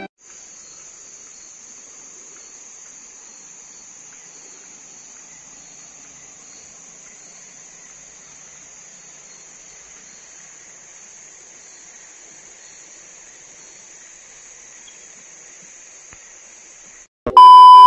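Steady high-pitched insect chorus. A loud electronic beep sounds briefly near the end.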